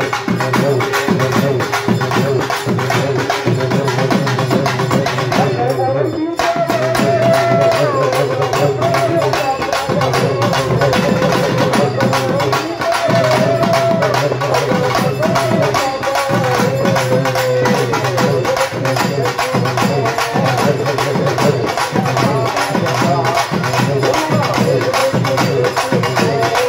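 Tamil temple festival music: fast, continuous drumming with a wavering, sustained melody line over it and a steady low drone beneath.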